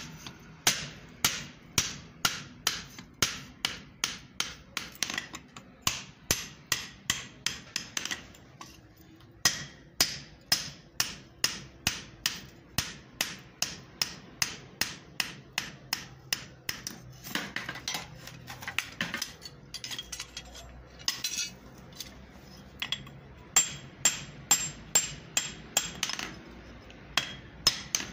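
Hand hammer forging a red-hot steel double axe head on an anvil: a steady run of sharp blows about two a second, broken twice by short lulls with lighter, irregular strikes.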